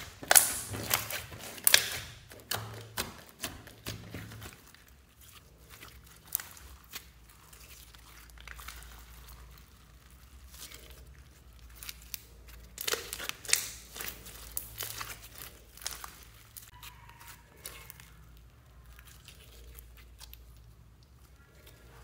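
Hands squishing and stretching clear slime with glitter mixed in: quick runs of sticky pops and crackles in the first few seconds and again around the middle, with quieter scattered clicks between.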